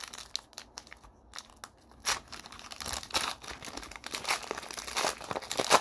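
Foil wrapper of a Panini Prizm trading-card pack crinkling as it is pulled open by hand, in irregular crackles that pick up about two seconds in, with a sharp crackle near the end.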